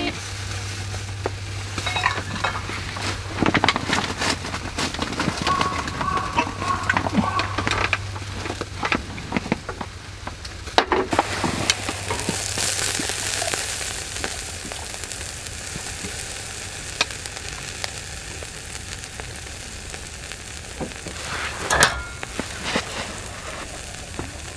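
Pork sizzling on a charcoal shichirin grill, with many small clicks of chopsticks turning the meat, during the first half. After a break about halfway, beer foam fizzes in a glass, and near the end beer is poured from a can into the glass.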